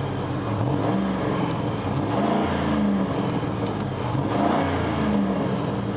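Ford 4.6-litre V8 engine of a 1999 Mercury Grand Marquis revved up and down several times, running smoothly with no misfire now that a connector with a broken clip has been pushed back on.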